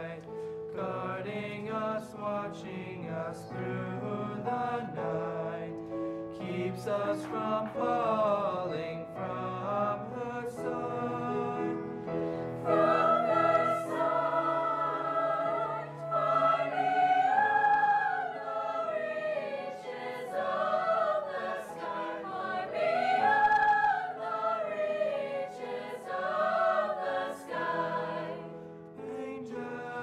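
High-school mixed concert choir singing a choral piece, many voices holding notes in harmony. About halfway through the singing grows louder, with the upper voices rising and falling in long phrases.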